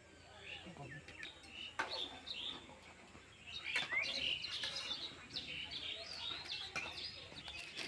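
Small birds chirping and calling in quick short notes, busiest from about halfway through, with a couple of faint knocks.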